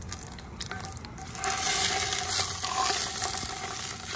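A coil of pork sausage sizzling as it goes into hot coconut oil in a cast-iron Dutch oven, browning. The sizzle starts about a second and a half in and then holds steady.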